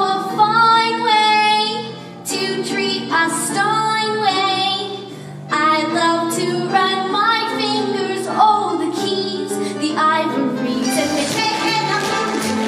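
A girl singing a solo live over instrumental accompaniment, in phrases with short breaths between them. Near the end the song gives way to a busier, livelier instrumental number.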